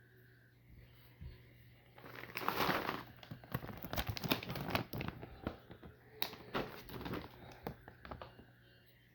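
Irregular dry crinkling and rustling with many small sharp crackles, as of dry material being stirred and picked through. It starts about two seconds in, is loudest in the middle, and dies down near the end.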